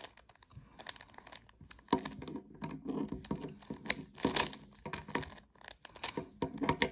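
Plastic speed cube being turned quickly by hand, its layers clicking and rasping in an irregular run of clicks, busiest from about two seconds in.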